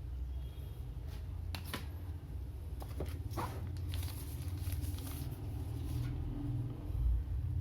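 A few light taps and scrapes, as of objects being handled, over a steady low hum.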